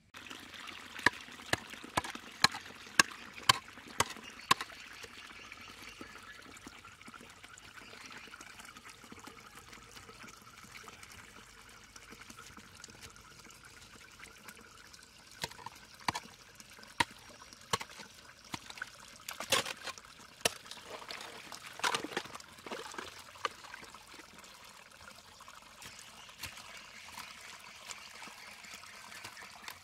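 Muddy water trickling and pouring through a channel cut in a mud bank, with a hoe chopping into the wet earth: a quick run of sharp strikes in the first few seconds and more scattered strikes in the middle.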